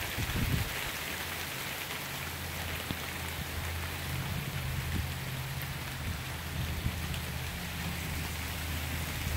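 Steady rain falling on a paved street and lawns, with a low steady hum underneath.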